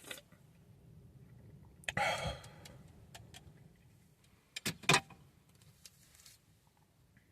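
Small handling sounds: a click at the start, a short rustle about two seconds in, then two sharp clicks close together just under five seconds in, over a low steady rumble.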